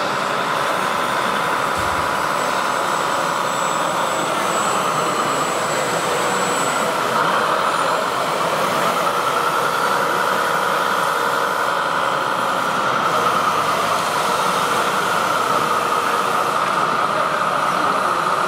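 Whine of radio-controlled model construction vehicles' electric motors and gearboxes, running steadily with the pitch slowly rising and falling as the speed changes.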